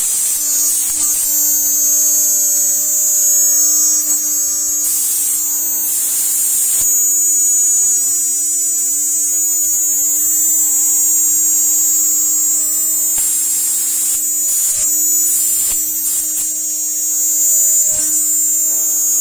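CNC router spindle with a small end mill milling a slot in aluminum sheet: a steady high-pitched whine over a steady lower hum, with harsher stretches of cutting noise several times as the bit bites into the metal.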